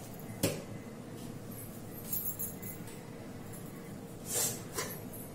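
A few light handling noises of kitchen things: a sharp click about half a second in, a brief hiss around two seconds, then a short rustle and a click near the end, over a faint steady hum.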